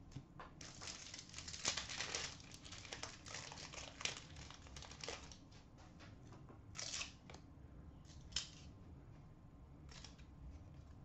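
Hockey card pack wrapper crinkling and tearing open, with a dense stretch of crackling early on and then a few short crinkles as the cards are pulled out.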